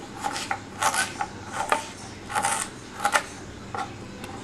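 A kitchen knife slicing through fresh ginger root, cutting it into small pieces: short, crisp scraping strokes, about seven of them at an uneven pace.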